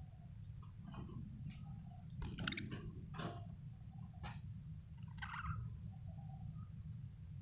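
Pet budgerigar making soft, scattered chirps and clicks, over a steady low hum.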